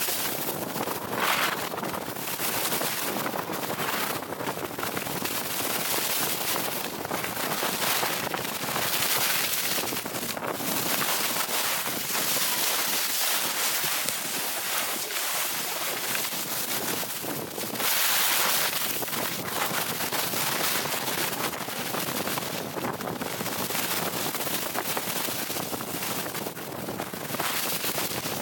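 Skis hissing and scraping over hard-packed groomed snow during a downhill run, mixed with wind rushing over the microphone. The scraping swells and fades several times, loudest a little past the middle.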